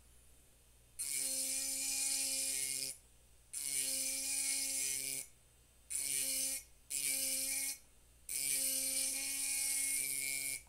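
Powered pen-style hand engraver buzzing with a bright hiss as its tip grinds into the glass of a wine bottle, in five short runs of one to two seconds with brief pauses between.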